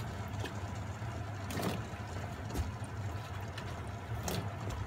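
Coconut milk boiling in a stainless steel pot over a steady low hum, with a few short plops and taps as cubes of sweet potato are dropped in by hand.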